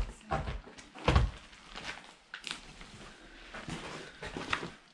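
A run of irregular knocks and thuds, the loudest about a second in, as a door is handled and feet move over wrecked wooden floorboards.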